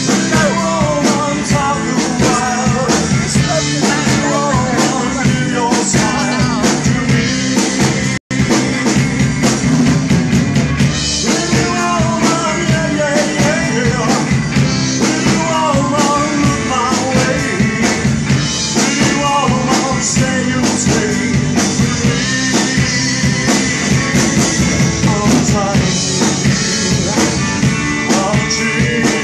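Live rock-and-roll band playing, with a man singing lead over drum kit, bass and electric and acoustic guitars. The sound cuts out completely for an instant about eight seconds in.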